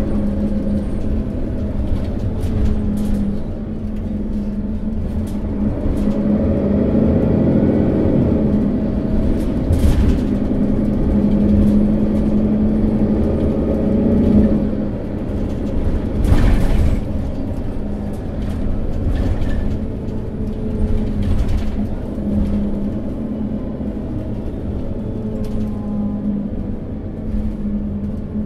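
Setra S415 NF city bus on the move: its diesel engine drones steadily, rising in pitch as it pulls away and falling again near the end. A few knocks come through along the way, the loudest around two-thirds of the way in.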